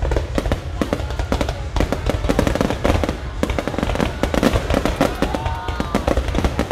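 Fireworks display: a dense, rapid run of bangs and crackles from bursting shells, loud throughout, with a few faint gliding tones near the end.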